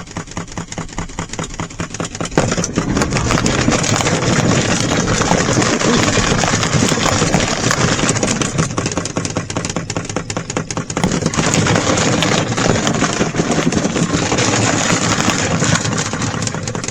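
A small RV washing machine running with junk thrown inside, its motor and agitator churning and clattering loudly with a fast, continuous rattle. It gets louder about two and a half seconds in.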